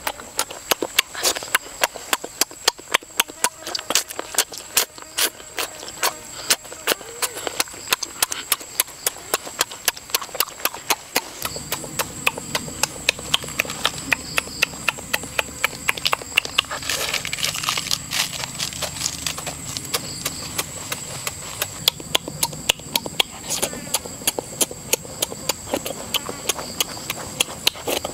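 Close-up eating sounds: wet chewing and lip-smacking, about two to three smacks a second, kept up throughout.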